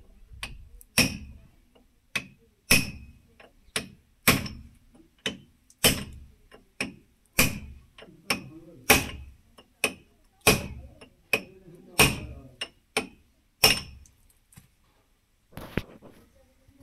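Hammer blows on steel parts, each strike followed by a brief metallic ring. A hard blow lands about every second and a half, most of them preceded by a lighter tap. The blows stop about two seconds before the end, after a last tap or two.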